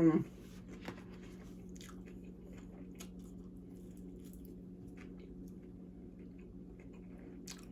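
A person chewing a mouthful of grilled chicken salad close to the microphone: soft, irregular crunches and wet clicks of raw vegetables. A steady low hum runs underneath.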